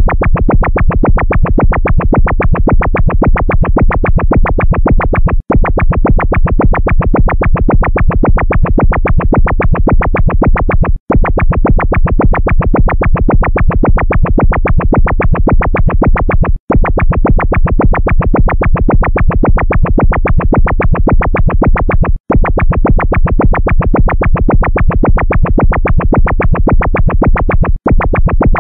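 Synthesized electronic alarm sound effect: a loud, fast train of short beeps, looped, with a brief break about every five and a half seconds.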